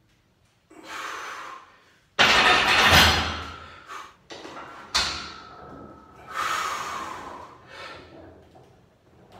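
A lifter breathing hard through a set of heavy barbell bench press reps: several loud, forceful exhalations that start abruptly, the loudest about two seconds in and another sharp one about five seconds in.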